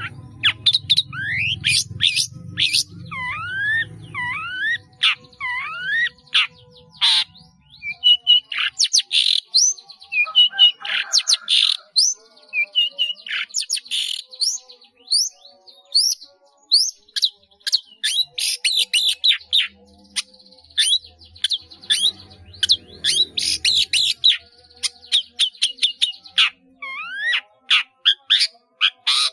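Long-tailed shrike singing a fast, varied song packed with mimicked calls of other birds. It is a rapid string of sharp chirps and clicks mixed with whistles that sweep up and down.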